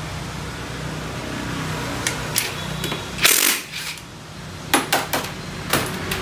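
Cordless impact wrench hammering on the clutch nut of a Honda scooter's belt-drive clutch: one loud half-second burst about three seconds in, with a few short bursts and sharp metal clicks before and after it. A steady low hum runs underneath.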